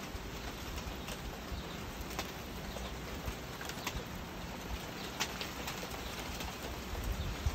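Steady rain falling, with scattered sharp drips tapping close by.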